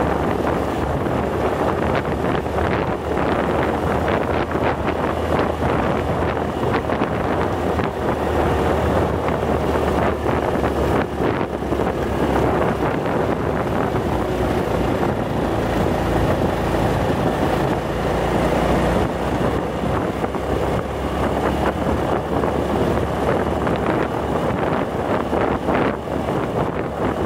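Motorcycle engine running steadily while riding along a road, with wind buffeting the microphone.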